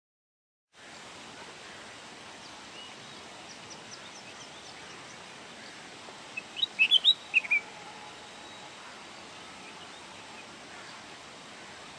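A songbird chirping: faint high notes early, then a short burst of loud chirps about six and a half seconds in, over a steady hiss that starts just under a second in.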